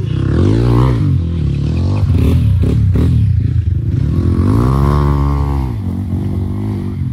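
Dirt bike engine revving up and down while ridden along a rocky trail, the revs swelling twice, with a few sharp knocks in between.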